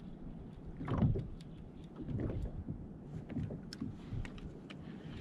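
Water sloshing and slapping against a fishing kayak's hull in irregular surges, with scattered light clicks and knocks.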